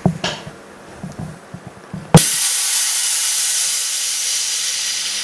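A few faint knocks, then about two seconds in a sudden, loud, steady hiss of air from a JiuTu M007 mini OCA vacuum laminating and debubbling machine.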